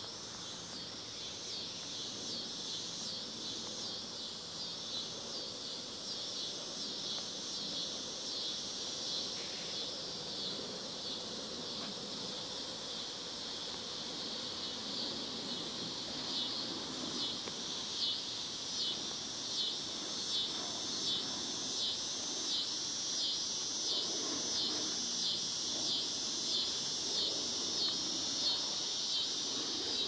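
Insects calling in a rhythmic outdoor chorus, pulsing a little over once a second and growing louder in the second half.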